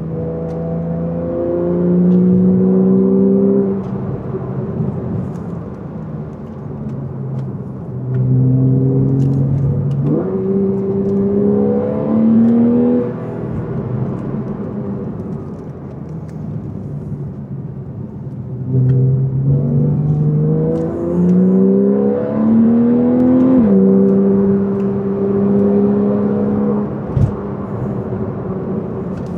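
Porsche 911 flat-six engine accelerating hard through the gears, its pitch climbing in steps and dropping at each upshift, in three pulls with lighter cruising between them.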